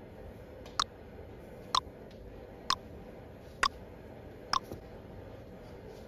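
Countdown timer sound effect ticking, five sharp ticks about one a second, stopping about four and a half seconds in as the count runs out.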